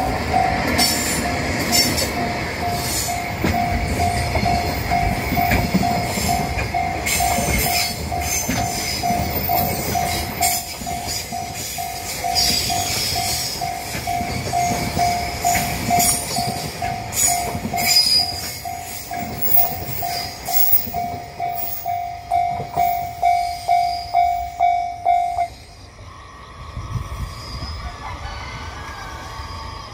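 Railway crossing alarm bell ringing in a steady two-strokes-a-second clang while a JR Freight train passes, its wheels clacking over the rail joints. The bell stops about 25 seconds in, once the train has cleared the crossing.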